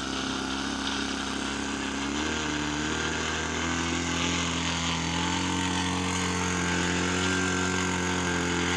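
Small piston engine of a radio-controlled model airplane running on the ground, its pitch stepping up a few times as the throttle is opened.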